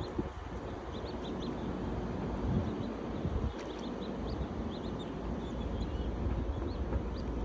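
Small birds giving short, high chirps again and again, over a steady low rumble of wind.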